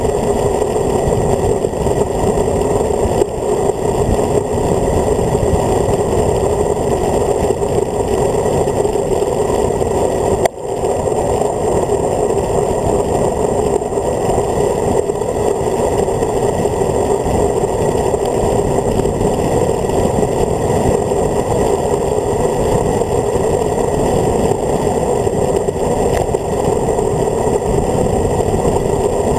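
Steady wind rumble on the microphone of a handlebar-mounted camera on a road bike descending at speed, mixed with tyre noise on the tarmac. It drops out briefly about ten seconds in.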